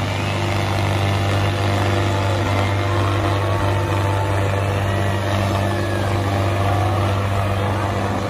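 Two farm tractors' diesel engines running hard and steady while they pull against each other in a tug-of-war, both under heavy load, making one loud, unbroken low drone.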